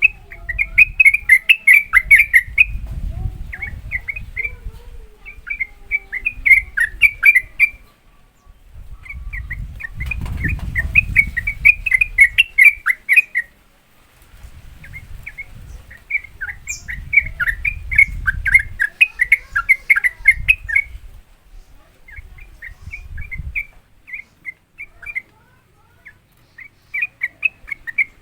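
Sooty-headed bulbul singing its fast rolling 'ropel' song, used as a lure call: bouts of rapid chattering notes a few seconds long, broken by short pauses. A low rumble sits under several of the bouts.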